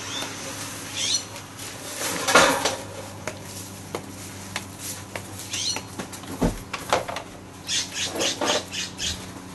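Stored items being handled and moved: a string of clatters and knocks, a low thump about six and a half seconds in, then a quick run of short rattles near the end.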